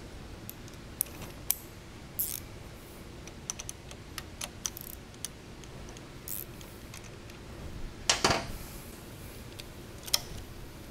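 Scattered small metallic clicks and clinks of bolts, spacers and tools being handled while a motorcycle rearset bracket is fitted, with a louder short clatter about eight seconds in.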